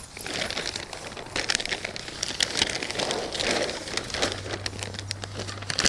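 Thick black plastic tarp crinkling and crackling as it is handled and folded in half, in irregular rustles.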